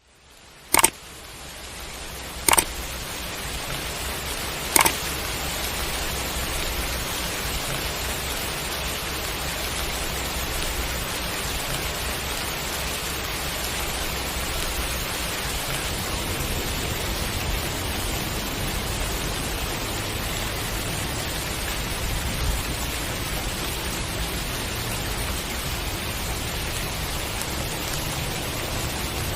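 Steady heavy rain that fades in over the first few seconds, with three sharp taps in the first five seconds.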